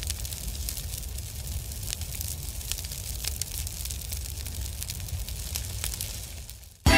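Crackling fire sound effect: a steady low rumble with many sharp scattered crackles, fading away near the end. Music cuts in suddenly at the very end.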